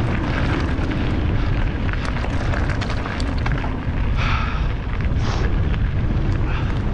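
Heavy wind buffeting on a GoPro's microphone as a mountain bike rolls fast down a gravel road, with the tyres crunching over the gravel and many small clicks and rattles from stones and the bike.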